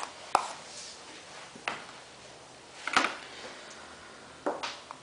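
A handful of sharp clicks and knocks of hard objects handled on a workbench, spaced a second or so apart, the loudest about three seconds in and a quick double knock near the end.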